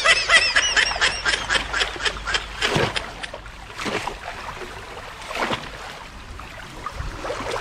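A quick run of high-pitched squeals in the first second and a half, then splashing in water, with louder splashes about three, four and five and a half seconds in.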